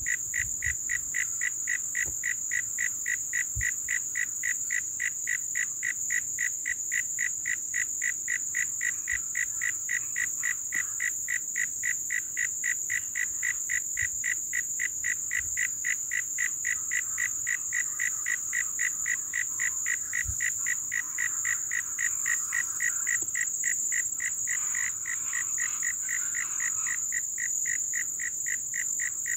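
A frog calling in a steady, even series of short notes, about three a second, over a continuous high-pitched insect drone. Other irregular calls join in near the end.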